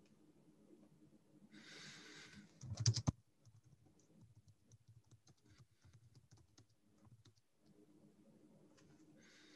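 Computer keyboard typing: a quick cluster of loud key clicks about three seconds in, then scattered lighter keystrokes. Two brief soft hisses, one just before the clicks and one near the end.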